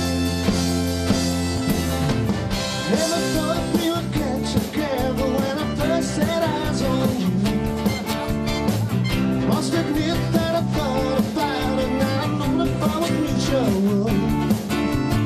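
Live band playing a rock song on amplified acoustic guitar, with a steady beat under it. A wavering melody line comes in about three seconds in.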